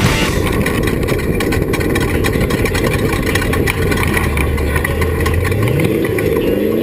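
Off-road race vehicle's engine running, with a lot of rattling; near the end its pitch climbs as it speeds up.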